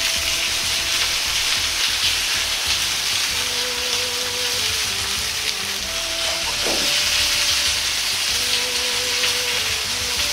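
Slices of pork loin sizzling steadily as they fry in a wok, searing on their second side until browned.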